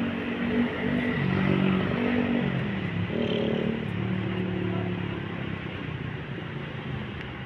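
Vehicle engine running, its pitch shifting in steps, slowly fading away.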